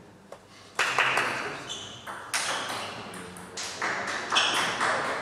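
Table tennis rally: the ball clicks sharply off the bats and the table in a loose rhythm, each hit ringing on in the large hall. A couple of faint ticks come first, before the hits start about a second in.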